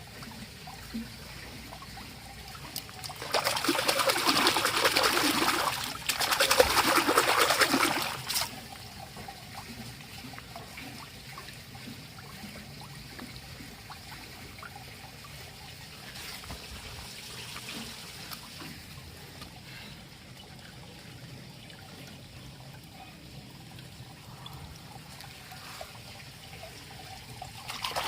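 Water trickling while toy vehicles are washed, with two louder gushes of running or pouring water about three and six seconds in, each lasting a couple of seconds.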